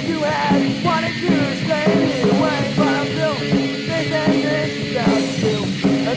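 Punk rock band playing: electric guitar, bass and drums under a singing voice.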